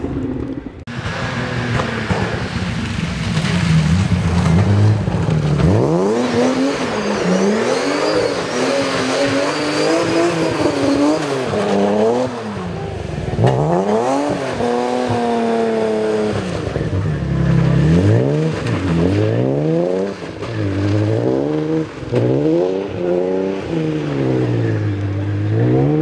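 BMW E36 3 Series rally car's engine worked hard through a corner, revving up and dropping off again and again as the throttle comes on and off, its pitch climbing and falling every second or two.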